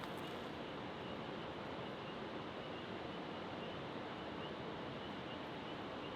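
Steady, even outdoor rushing noise with no distinct events, and faint high chirps recurring through it.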